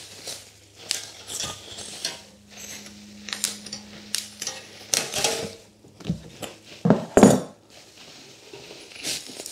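A metal wire basket being unwrapped from bubble wrap and a plastic bag: irregular crinkling and rustling of the packaging mixed with light metallic clinks and rattles of the wire. The handling gets louder about five seconds in and again about seven seconds in.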